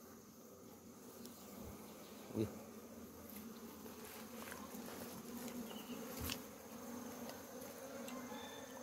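Honeybees buzzing over an opened hive with a steady, faint hum. About two and a half seconds in there is a short knock, and near six seconds a sharp click, as the wooden hive frames are handled.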